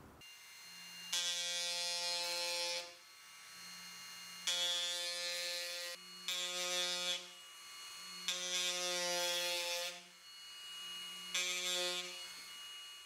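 Small cordless electric drill boring into a maple bonsai trunk, whining in five bursts of one to two seconds, each starting suddenly, over a low steady motor hum.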